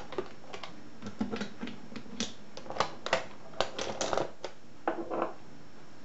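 Metal lock cylinders and their storage box being handled: an irregular run of sharp clicks, clacks and knocks, the loudest in the middle of the stretch.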